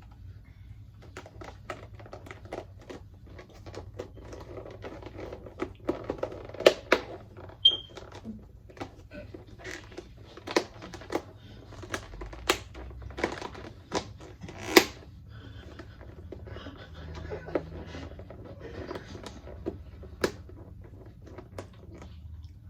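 Irregular sharp clicks and crinkling, with a few louder snaps in the middle and once more near the end.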